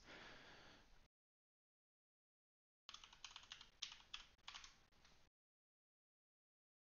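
Faint typing on a computer keyboard: a short run of keystroke clicks for about two seconds in the middle, with dead silence before and after.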